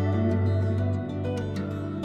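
Background music: soft plucked guitar-like notes over a held low tone.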